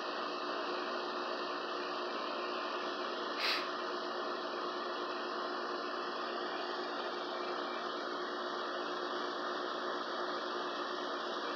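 Steady background hum and hiss, like a fan or appliance running, with one short soft burst about three and a half seconds in.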